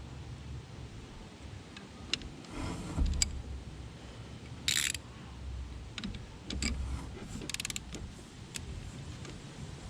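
Ratchet and 16 mm spark plug socket working a spark plug loose: scattered metal clicks and clinks, two short scraping bursts, and a quick run of ratchet clicks a little before the end.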